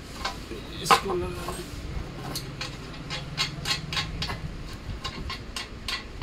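Metal parts of a sewing machine stand knocking and clicking as they are handled and a frame section is lifted upright. A sharp clank about a second in is the loudest, followed by a string of lighter clicks at a few per second.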